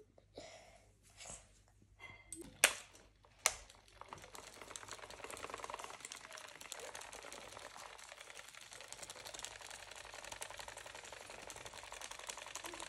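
Small battery-powered toy fan running, its motor and plastic blades making a steady, rapid ticking whir from about four seconds in. Before it starts there are two sharp clicks, about a second apart.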